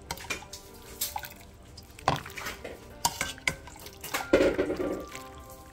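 Utensils clicking against a ceramic bowl of boiled bok choy in broth, with liquid sounds from the broth and a louder burst about four and a half seconds in.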